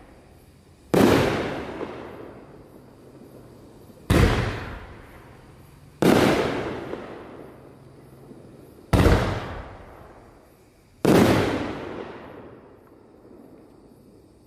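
A 3-inch, 9-shot fireworks cake (Pitbull PTF2512 Attacking Jellyfish) firing its aerial shots. There are five loud booms about two to three seconds apart, and each one dies away slowly over a second or two.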